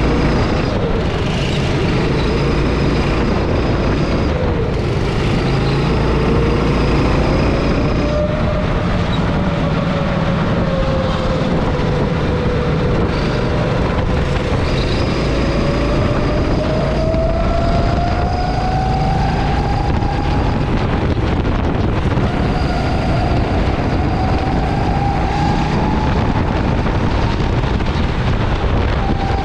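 Go-kart engine running hard on track, its pitch slowly falling and rising again several times as the kart brakes into corners and accelerates out of them, over a steady low rumble.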